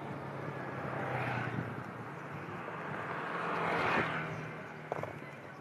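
Street traffic heard from a moving vehicle: a steady low hum under the rush of passing vehicles, which swells about a second in and more strongly around four seconds before fading.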